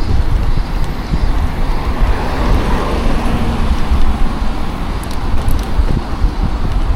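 Wind buffeting an action camera's microphone on a road bike, a steady low rumble. A motor vehicle passes, swelling and fading between about two and four seconds in.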